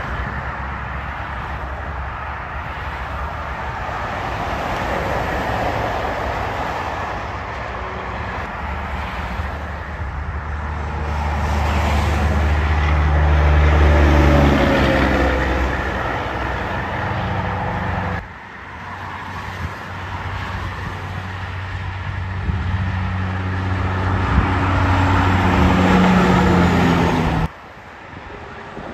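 Highway traffic with diesel semi trucks passing close by: engine drone and tyre noise build to a peak about halfway through, where a big rig's engine note drops in pitch as it goes past. The sound breaks off suddenly twice, a little past halfway and near the end, before building again as more trucks approach.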